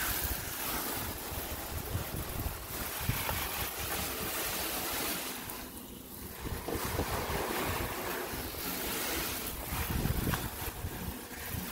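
Water from a garden hose spraying and splattering onto a car's body panels and windows, a steady hiss that drops away briefly about six seconds in before picking up again.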